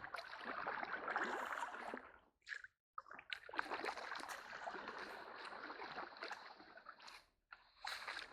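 Canoe paddles pulling through shallow creek water: sloshing, splashing and trickling water dripping off the blades, broken by two short dead-silent gaps, one about two and a half seconds in and a shorter one near the end.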